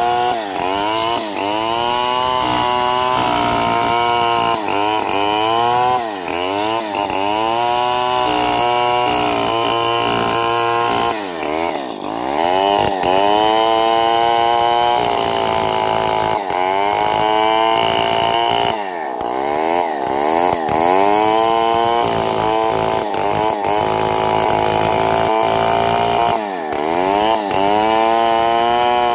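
Stihl MS 070 chainsaw, a big single-cylinder two-stroke, ripping lengthwise through a large albizia log. The engine speed sags under load and picks up again over and over, about every couple of seconds, with a few deeper dips as the chain bites harder.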